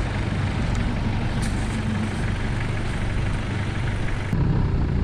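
Heavy vehicle engine running steadily, with an abrupt change in the sound about four seconds in.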